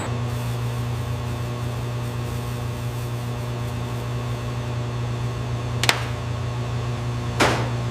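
Steady low machine hum, with two sharp clicks about a second and a half apart near the end.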